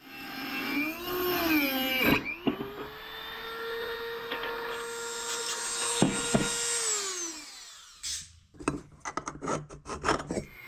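Small high-speed power tool motor, a rotary tool: its whine wavers in pitch at first, then spins up, runs at a steady pitch for about five seconds and winds down. Near the end comes a quick run of sharp scraping strokes, a blade scribing on steel.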